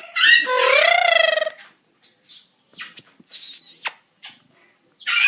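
Pet parrot vocalizing: a loud, wavering call in the first second and a half, then a high whistle and a shrill squawk, with another call near the end.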